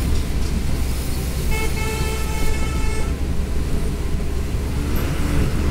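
A vehicle horn sounds once, a steady pitched honk held for about a second and a half, a little over a second in. Under it is a steady low rumble and hiss.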